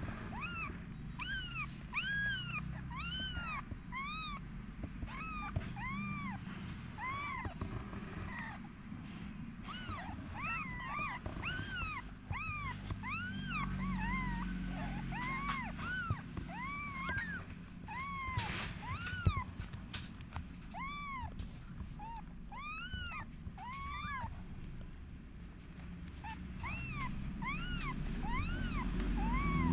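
Newborn kittens mewing: short, high-pitched cries that rise and fall in pitch, about two a second, some overlapping one another.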